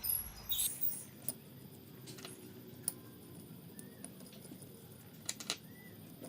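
A series of light clicks and clinks, with a louder cluster at the start and a pair of sharp ones a little past five seconds.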